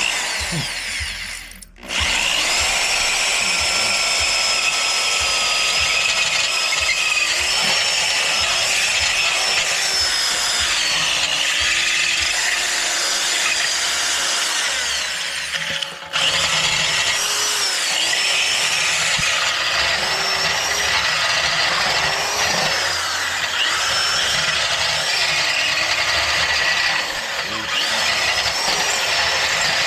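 Electric drill with a large bit grinding out the catalytic converter core inside a motorcycle exhaust pipe, running under load with its pitch wavering. It stops for a moment about two seconds in and again about halfway through.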